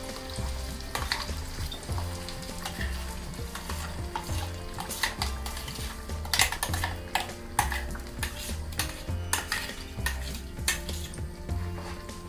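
Ground masala paste frying in melted butter in a pan, sizzling, while a spoon stirs it with repeated scrapes and knocks against the pan.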